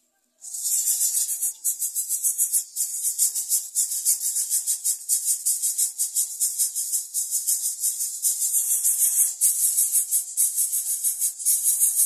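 Greater coucal nestlings begging to be fed, a loud, high, hissing rasp in rapid pulses, like a shaken maraca, that starts suddenly about half a second in and keeps going.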